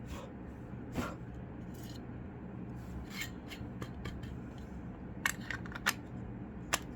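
Light rubbing and scattered small clicks from a plastic clock case and its circuit board being handled and wiped, with a few sharper clicks in the second half, over a steady low hum.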